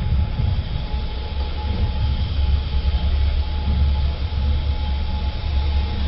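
Passenger train running, a steady low rumble with a faint constant whine, heard from inside the carriage.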